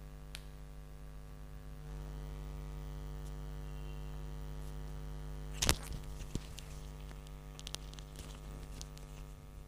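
Steady electrical mains hum, a stack of buzzing tones that gets a little louder about two seconds in. A single sharp knock about five and a half seconds in is followed by a few faint clicks.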